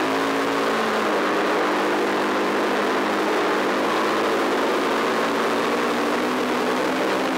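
Off-road motorcycle engine running under way on a gravel track, its note shifting about a second in and then holding fairly steady over a loud wash of noise.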